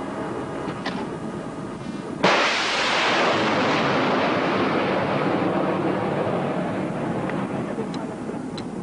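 A Standard missile launching from the destroyer: a sudden blast about two seconds in, then a rushing roar that fades over several seconds as the hiss dies away, over steady wind and ship noise.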